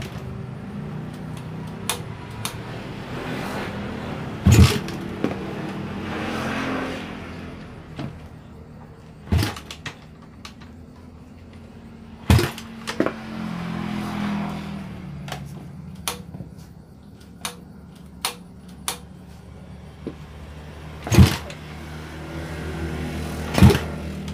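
Repeated kick-starting of a Suzuki Satria FU drag bike's high-compression single-cylinder engine, bored out with a 70 mm piston. The engine catches only in short spurts that rise and die away, with several sharp bangs between the kicks.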